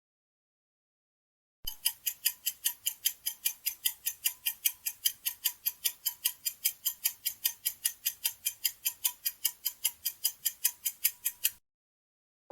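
Clock-ticking countdown timer sound effect: rapid, even ticks, about four a second, starting about a second and a half in and running for around ten seconds before stopping.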